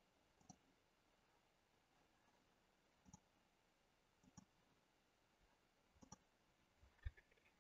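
Near silence with about five faint, scattered computer mouse clicks.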